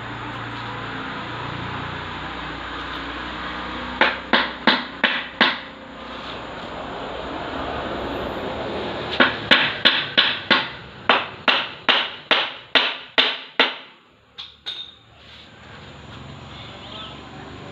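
Hammering in two runs of sharp blows at about three a second: five blows about four seconds in, then about fifteen more from about nine seconds, ending with two weaker knocks, over a steady background noise.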